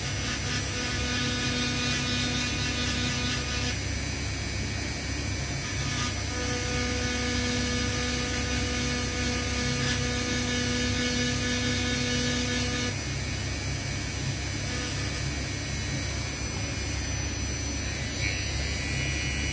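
Dremel rotary tool on a flexible shaft running with a steady high whine, its bit engraving a metal knife ferrule. A steadier humming tone sounds over two stretches, the second ending about 13 seconds in, while the motor runs on.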